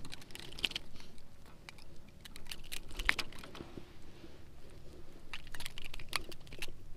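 Irregular light clicks and rattles, like small hard objects being handled.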